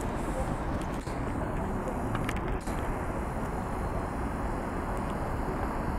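Steady outdoor background noise with a low rumble, and faint voices of people walking about.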